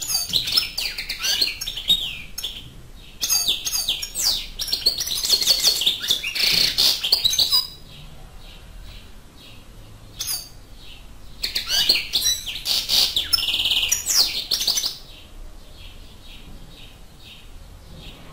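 A wild-caught European goldfinch singing in three bursts of rapid, high twittering, with fainter short chirps repeated evenly in between.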